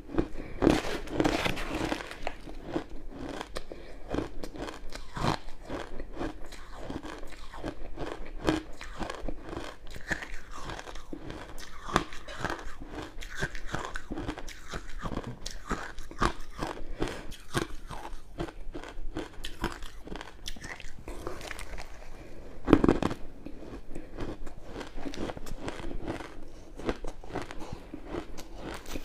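Crushed ice being bitten and chewed close to the microphone: a dense run of irregular crunches and crackles, with a few harder bites, the loudest about 23 seconds in.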